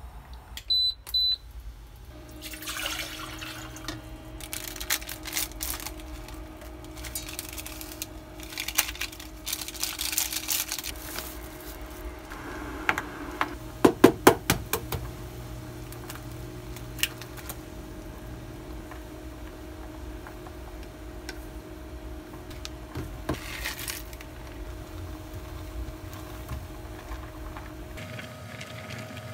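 Two short electronic beeps, then a steady electric hum with stretches of running water and a few sharp clicks and clatters.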